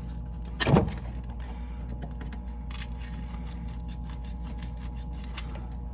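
Sandpaper rubbing over the metal rod of a furnace flame sensor in quick strokes, heard as a run of rapid, irregular scratchy clicks over a steady low hum, with one brief louder sound just under a second in. The sanding cleans corrosion off the sensor, whose fouling stops the furnace from proving flame after ignition.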